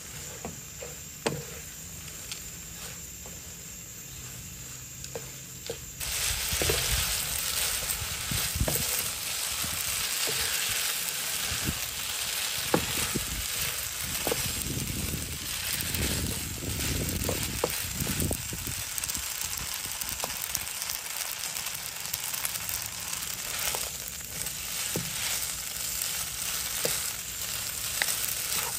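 Glass noodles stir-frying in a nonstick pan: a sizzle that jumps abruptly louder about six seconds in, with the wooden spatula scraping and knocking against the pan as the noodles are turned.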